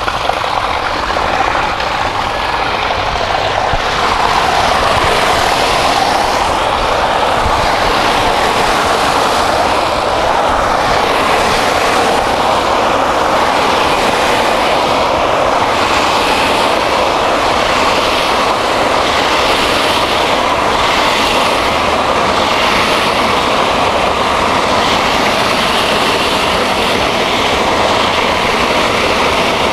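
Water rushing out of a fire hydrant's open outlet in a steady jet onto the pavement, building over the first few seconds as the valve opens and then holding level. This is the hydrant's annual flush, which proves the valve works and clears debris from the service line.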